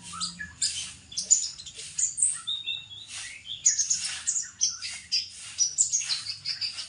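Birds chirping: a dense, continuous run of short high chirps, trills and whistles following one another in quick succession.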